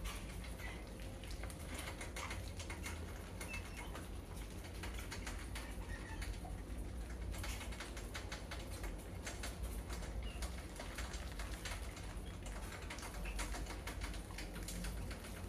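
Many mice scrambling over and inside a wire-mesh cage trap, their claws on the wire making a dense, irregular patter of light clicks and rattles.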